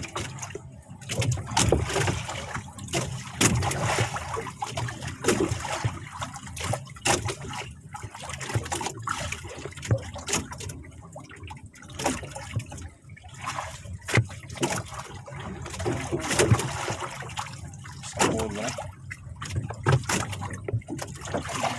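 Water sloshing and trickling against a small boat's hull, with irregular knocks and clicks throughout.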